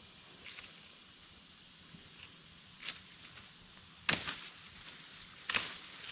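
A steady, high-pitched drone of insects in the woods, with three short knocks or rustles of brush or footsteps about three, four and five and a half seconds in.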